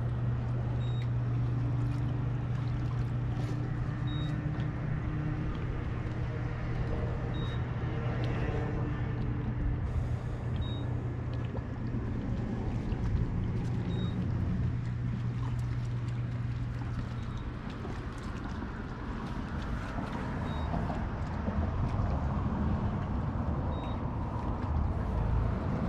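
A motor engine running steadily with a low hum under a noisy background; the hum fades out about two-thirds of the way through.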